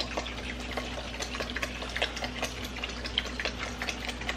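Pot of water at the boil, bubbling with a dense run of small, irregular pops and crackles.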